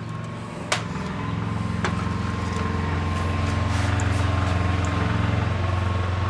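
A steady low motor hum, engine-like, building slightly over the first few seconds. Two light clicks come early as the loaf is handled on the board.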